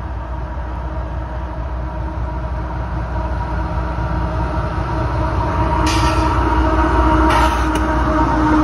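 Diesel freight locomotive approaching and drawing alongside, its engine's steady low drone growing louder, with a couple of brief hissing bursts near the end.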